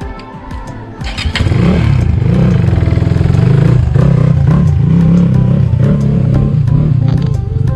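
Dirt bike engine pulling under load up a rough, muddy climb. It comes in loud about a second in, and its pitch rises and falls with the throttle.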